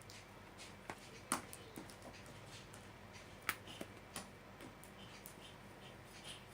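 A few faint, scattered clicks and taps of a plastic lotion bottle and mixing container being handled as body lotion is added to clear glue.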